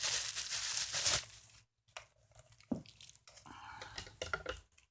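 Packaging crinkling and tearing as a boxed LED party light is unwrapped, loud for about the first second, then quieter rustling and a few light knocks as it is handled.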